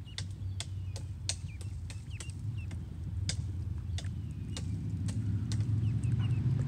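Ducklings peeping faintly, with many short sharp clicks. Under them runs a steady low engine hum that grows louder toward the end.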